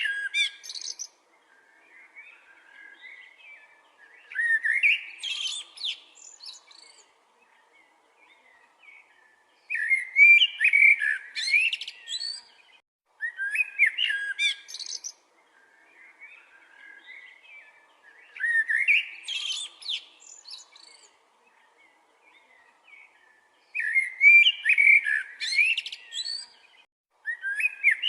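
A bird singing loud, warbling, chirping phrases of a second or two, repeated every four or five seconds, with softer twittering in between.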